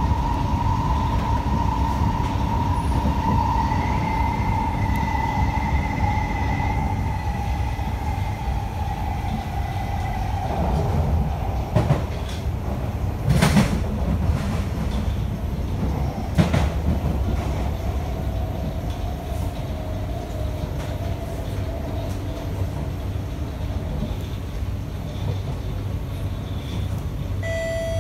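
Inside an SMRT C151B metro train, the traction motors' whine falls steadily in pitch as the train slows into a station, over the rumble of wheels on the rails. A few sharp knocks come around the middle, and an electronic chime starts near the end.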